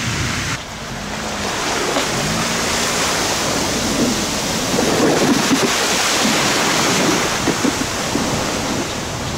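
Water rushing and splashing as a towing car's tyres and a wakeboard plane through ankle-deep flood water on a paved road, building up about half a second in. Wind buffets the microphone throughout.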